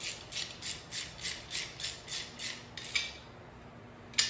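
Ratchet wrench turning the brake caliper guide pin into the brake guard bracket: quick, even back-strokes of clicking, about three a second, that stop near three seconds in, then a single sharp metal click near the end.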